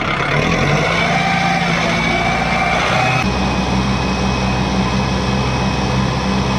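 Kubota 4WD tractor's diesel engine running hard while its rear wheel spins in loose sand: the tractor is stuck and the driver is working the wheel free. The engine note changes abruptly about three seconds in.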